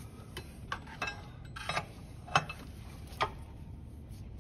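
Hand tools clinking against the fan clutch and water pump pulley: about seven light, separate metallic clicks and taps as a spanner wrench and wrench are worked onto the fan clutch.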